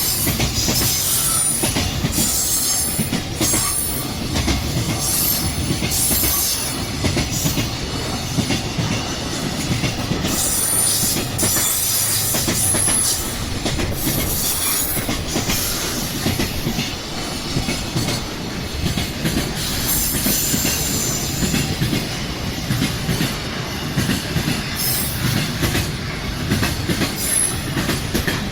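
A train passing close by with a steady rumble of wheels on rail and clatter over the rail joints, broken by repeated brief high-pitched wheel squeals.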